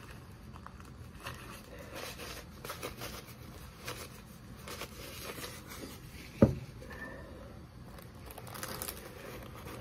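Paper rustling and crinkling from handling a roll of paper towels and a paper popcorn bag. One sharp thump about six and a half seconds in.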